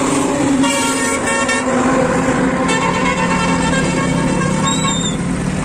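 Vehicle horns honking on a highway: a few short toots about a second in, then a longer blast of about two seconds, over the steady running of a motorbike engine and passing traffic.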